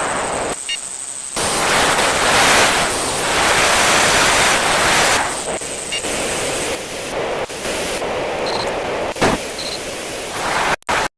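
Jet engine noise from a Boeing 737-800's CFM56-7B turbofans: a loud, steady roar of broad noise with a faint high whine. It changes level abruptly several times and cuts out briefly near the end.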